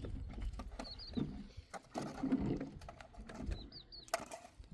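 A few short high chirps, about a second in and again near the end, among scattered clicks and knocks.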